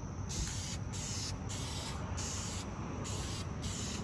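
Aerosol spray-paint can hissing in a run of short bursts with brief pauses between them, over a steady low rumble.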